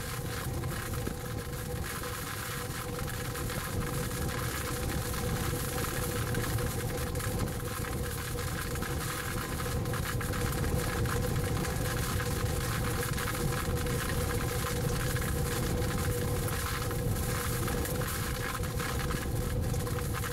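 Steady storm wind and rain noise heard from inside a vehicle, a deep rumble under a broad hiss, with a steady hum running through it.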